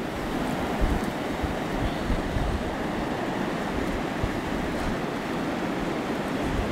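Blizzard wind blowing steadily, with gusts buffeting the microphone.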